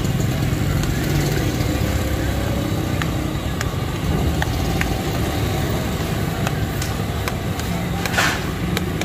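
Steady street traffic rumble with irregular sharp clinks of a metal spatula against the iron tawa as chicken is stirred, and a short hiss near the end.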